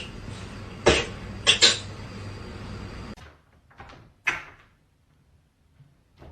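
Three sharp knocks or bangs, like a cupboard door, over a steady low hum. About three seconds in the hum cuts off, leaving only a couple of faint short clicks.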